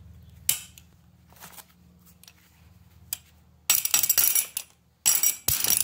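Metal clinking as a tight steel rivet is tapped through a new cutter section on a sickle bar knife: a sharp click about half a second in, a few faint ticks, then two loud bursts of clattering strikes near the end.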